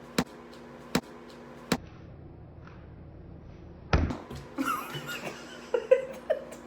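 A lump of homemade slime thrown and slapped against a hard surface: three sharp slaps about three-quarters of a second apart, then a heavier thump about four seconds in, followed by softer handling sounds.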